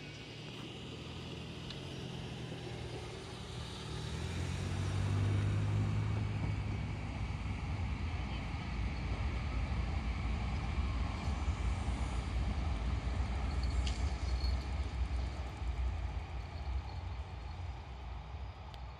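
E5 series Shinkansen train running past at speed along a concrete viaduct: a low rushing rumble that builds about four seconds in, holds steady, and fades toward the end.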